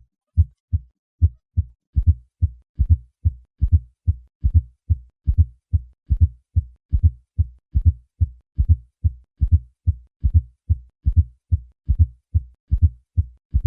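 Heart sounds with a fourth heart sound (S4): a soft low thud in late diastole just before each first heart sound, giving a steady triple rhythm, an atrial gallop. An S4 is the sign of a stiff, non-compliant left ventricle, often from hypertrophy in hypertension.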